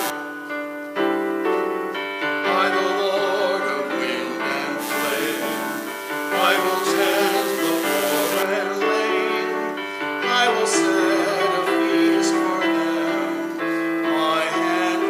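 A man and a woman singing a hymn together with keyboard accompaniment.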